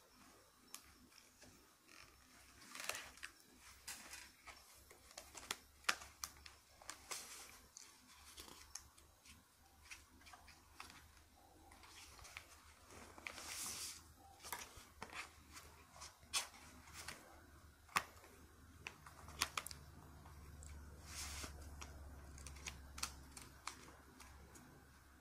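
Fingernails tapping and scratching on a glossy book page: irregular soft clicks and short scratchy swishes.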